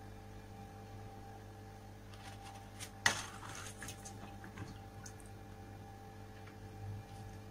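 A sheet of rice paper being dipped into a bowl of warm water: a sudden splash about three seconds in that trails off over about a second, over a steady low hum.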